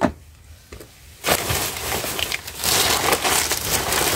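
Plastic rubbish bags rustling and crinkling as a gloved hand rummages through them, starting loud about a second in.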